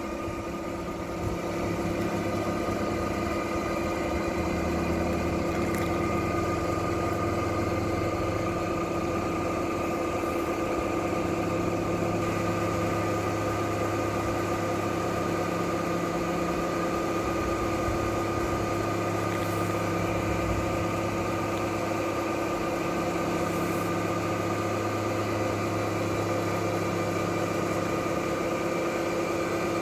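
A motor running steadily, a constant hum over a low drone that fades slightly and comes back a few times.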